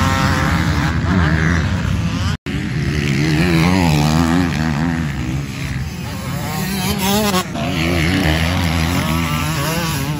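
Motocross dirt bike engines revving hard on track, the pitch rising and falling over and over as the riders open and close the throttle and shift. The sound cuts out completely for a moment about two and a half seconds in.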